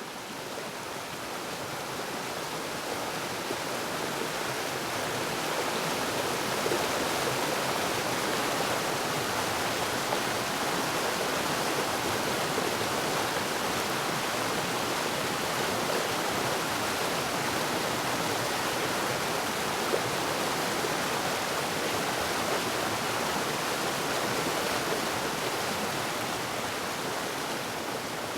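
Waterfall: a steady rush of falling water, growing louder over the first few seconds and then holding even.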